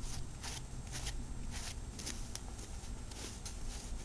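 A brush stroked repeatedly through a dog's coat: a steady run of short swishes, about two or three a second.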